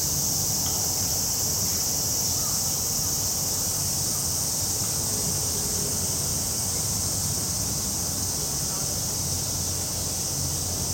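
Chorus of cicadas buzzing steadily in a continuous high-pitched drone, over a low outdoor rumble.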